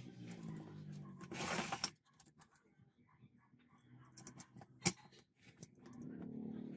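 Light metallic clicks and rattles of a steel ball bearing's balls, cage and races being fitted together by hand, with a brief scraping rush about a second and a half in and one sharp metal click near five seconds. Low background music fades out early and comes back near the end.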